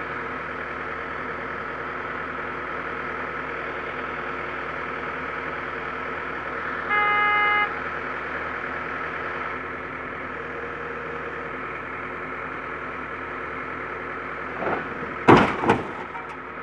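Iveco crane truck running steadily, its engine driving the loader crane's hydraulics as the grab swings. A short horn-like beep about seven seconds in, and a few loud knocks near the end.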